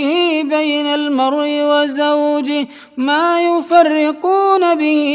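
A man reciting the Quran in a melodic tajweed chant, holding long drawn-out notes with ornamented turns. He breaks off for a brief breath about two and a half seconds in.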